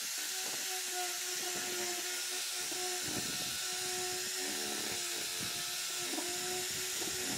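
A power tool running steadily, with a strong hiss and a faint humming tone that wavers in and out.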